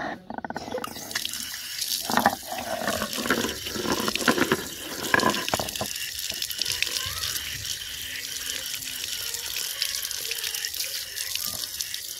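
A thin stream of water pouring and splashing onto a stone washing slab on a concrete floor, starting about a second in and running steadily, with a few sharper splashes early on.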